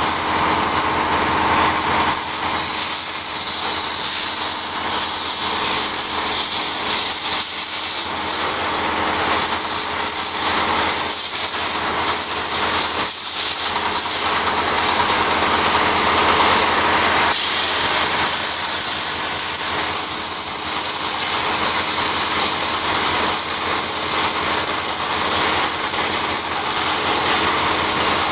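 Oxy-fuel cutting torch hissing steadily as it burns bolt holes through the end of a steel rail.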